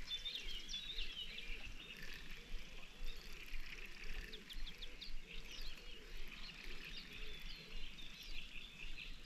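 Several small birds chirping and singing in quick, overlapping high calls.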